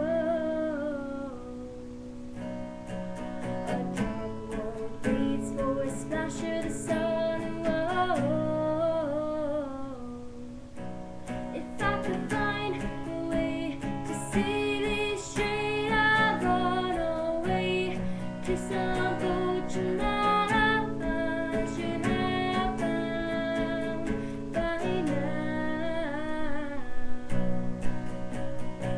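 Strummed acoustic guitar with a voice singing over it.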